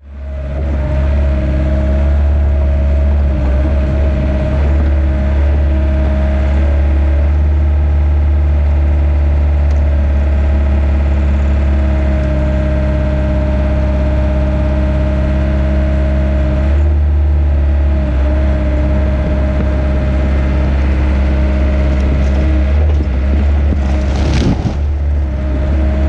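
Yanmar B50 mini excavator's diesel engine running steadily under working load as the machine digs out a tree stump and pushes the tree over. Near the end there is a brief crash as the tree and its roots go down.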